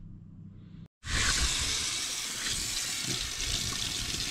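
Water running steadily from a tap into a stainless steel sink, with a hand rinsing under the stream. It starts suddenly about a second in, after a moment of quiet.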